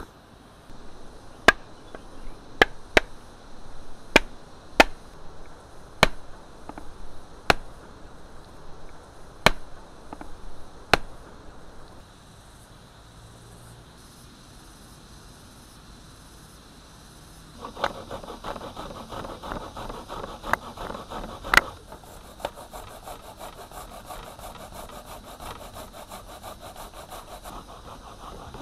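Hard coconut shell being struck repeatedly to crack it open, about ten sharp knocks at uneven intervals. Later comes a steady scratchy rasp with fast fine ticking.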